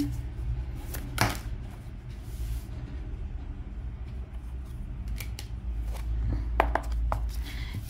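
A deck of tarot cards being shuffled by hand, the cards sliding and snapping against each other in scattered clicks, over a low steady hum.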